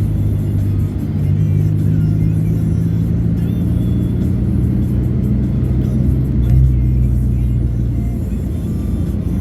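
Music with a heavy bass line playing through a car's stereo while driving, over engine and road noise.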